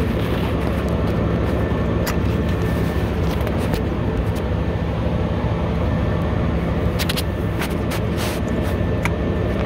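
A steady low mechanical drone, with a few short clicks and scrapes from gloved hands handling plastic fuel-line fittings.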